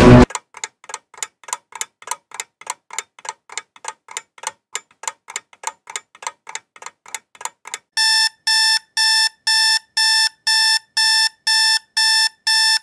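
Rapid ticking, about four ticks a second, then from about eight seconds in a digital alarm clock beeping, about two beeps a second.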